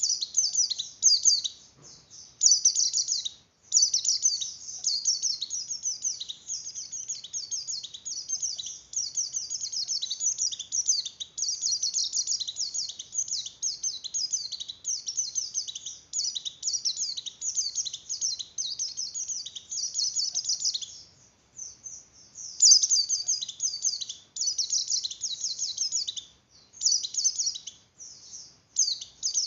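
White-eye (pleci) in breeding condition singing a rapid, high-pitched twittering song in long runs broken by short pauses, with one longer pause about two-thirds of the way through. This excited breeding song is the kind played to other white-eyes to stir their breeding drive.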